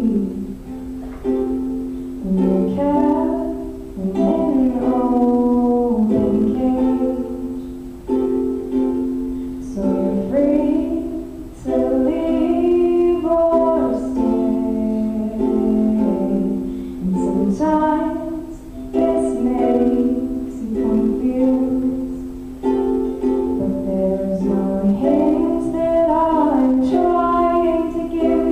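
A woman singing a song over a live instrumental accompaniment, in phrases a few seconds long.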